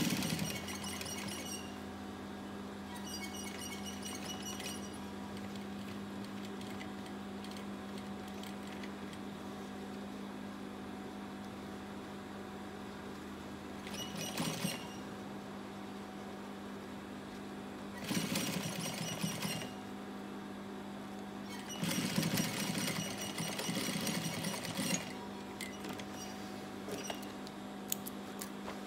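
Gemsy industrial lockstitch sewing machine stitching through a denim jeans waistband in five short runs of fast, even stitching, each one to three seconds long, with pauses between. A steady hum runs underneath throughout, and a few small clicks come near the end.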